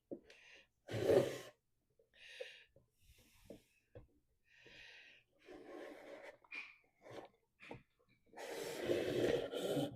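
The lid of a wooden tissue-box cover being worked into place: a series of short scraping and rubbing noises with small clicks in between, and a longer scrape near the end, as the lid fails to go on.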